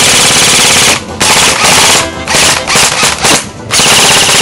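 Rapid automatic gunfire in loud bursts, broken by brief pauses about a second in, at about two seconds and around three seconds, then firing without a break near the end.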